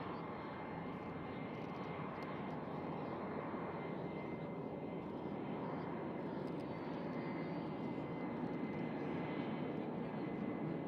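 EA-18G Growler's twin General Electric F414 turbofan engines running at taxi power: a steady jet rumble with a thin high whine, growing slightly louder.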